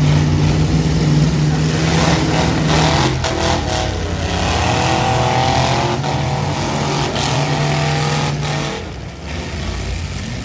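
Several battered demolition-derby pickup trucks' engines running hard and revving in the arena, their pitch rising and falling a few seconds in, with a few short knocks about three seconds in.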